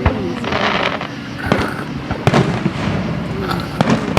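Aerial fireworks display: a string of sharp bangs from shells bursting, with crackling between them.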